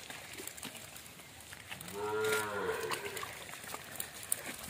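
A cow mooing once, about two seconds in: a single drawn-out call of about a second that rises and then falls in pitch. Faint scattered clicks and rustling run beneath it.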